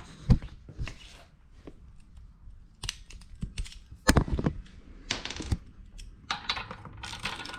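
Metal hand tools clicking and clinking as a ratchet and spark plug socket are picked up and fitted, with irregular clicks and a couple of louder knocks.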